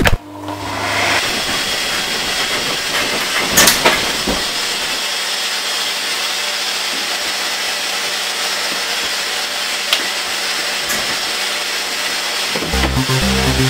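Vacuum cleaner switched on with a click, its motor coming up to speed over about a second, then running steadily with a loud, even hiss.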